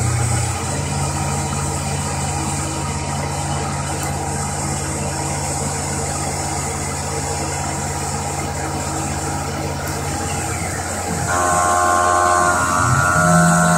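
CNC milling machine running, its spindle turning an end mill over an aluminium block with a steady hum. About eleven seconds in, as the end mill reaches the part, a louder steady whine of several high tones sets in.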